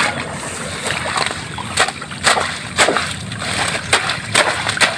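Water spinach (kangkong) being pulled up by hand, roots and all, from wet mud: short splashes and squelches with leaves rustling, about twice a second.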